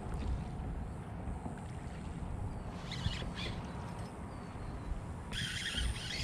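Wind rumbling on the microphone over open water, with a few faint light rattles. Near the end the sound changes abruptly to a brighter, busier hiss.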